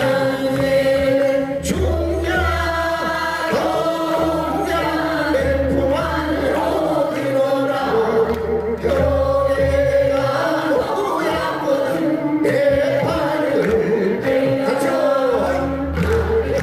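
A mixed group of men and women singing a Korean folk song (minyo) together in unison, over a low backing that swells and fades every couple of seconds.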